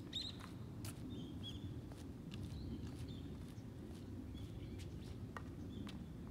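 Tennis balls being struck by rackets and bouncing on a hard court during a crosscourt rally: several sharp pops, spaced a second or more apart. Small birds chirp in short calls between the hits, over a low outdoor rumble.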